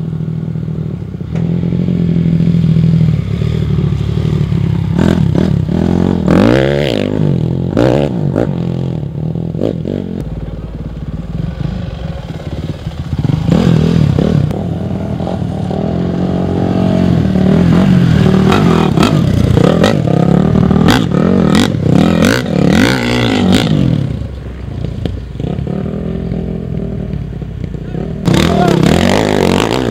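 Off-road dirt bike engines revving up and down as the bikes ride past on a dirt course, several times over, with the sound changing abruptly between passes.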